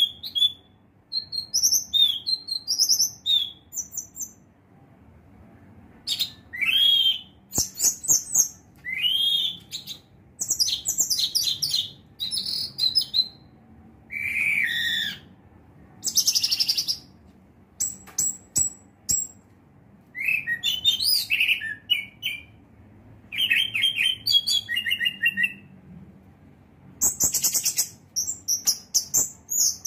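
Orange-headed thrush (anis merah) singing: a varied run of high, quick phrases, with fast trills, swooping whistles and chattering notes separated by short pauses, and a lull of about two seconds about four seconds in.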